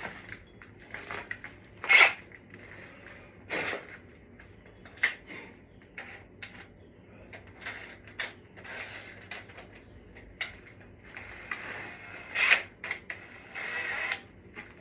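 Irregular clicks, rattles and short scrapes of something hard being handled, with a loud clatter about two seconds in and another near the end.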